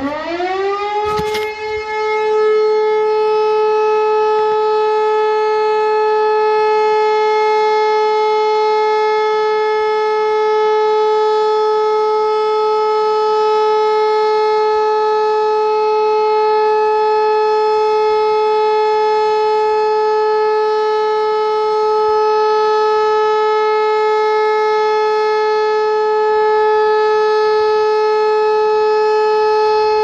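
Civil-defence warning siren rising in pitch during the first couple of seconds, then holding one steady, unbroken tone: the one-minute continuous all-clear signal (Entwarnung).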